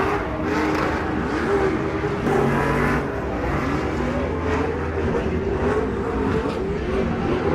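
Off-road race vehicle engines revving, their pitch rising and falling repeatedly with the throttle, more than one engine at a time.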